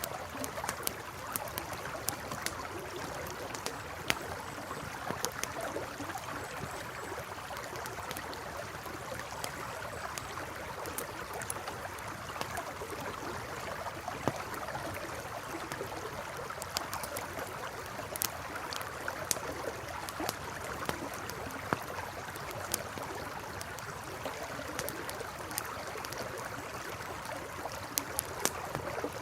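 A river flowing with a steady rush, and a campfire crackling over it with sharp, irregular pops.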